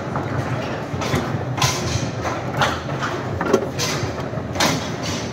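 Foosball table in play: about half a dozen sharp, irregularly spaced knocks of the ball and rods striking the players' figures and the table, over a steady background hum.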